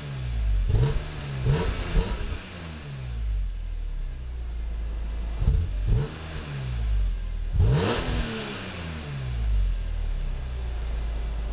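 BMW E46 M3's S54 straight-six heard from behind its quad exhaust tips, revved in a series of quick throttle blips and a few longer revs that climb and fall back, then settling to a steady idle near the end.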